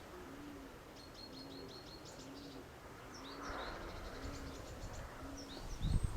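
Small birds chirping in quick series of short high notes, over a low short note repeating about every three-quarters of a second and a haze of wind. Near the end a gust of wind hits the microphone with a loud low rumble.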